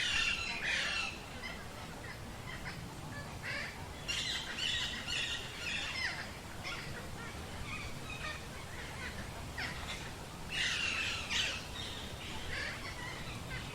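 Wild birds chirping and calling in short flurries over a faint outdoor background, with busier bursts of calls at the start, around four to six seconds in, and again near eleven seconds.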